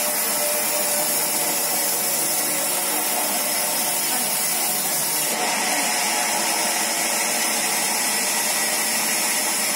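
Large band saw mill running without cutting: the motor and blade give a steady, even whirring noise, a little hissier about halfway through.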